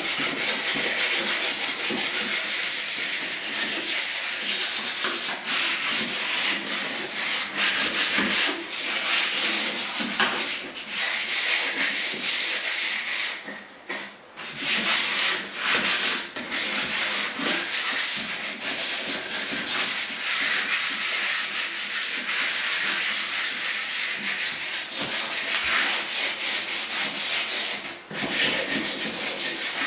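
Fine-grit sandpaper rubbed by hand over the stained and polyurethaned finish of a fiberglass door: a steady scratchy hiss of sanding strokes, pausing briefly about halfway through and again near the end. It is a light scuff-sand to give the old finish some tooth for primer.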